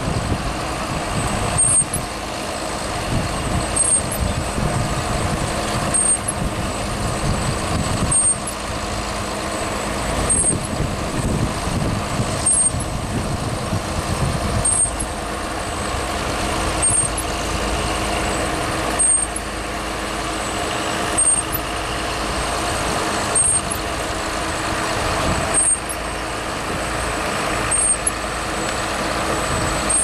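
A John Deere 7830 tractor's six-cylinder diesel engine and a Grimme SE 170-60 twin-row potato harvester running together under load at work in the field, a steady mechanical din. A short high tick comes regularly about every two seconds.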